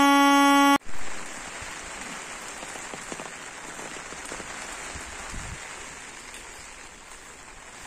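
Light rain falling steadily as an even hiss. It opens with a loud, steady horn-like tone that cuts off suddenly under a second in.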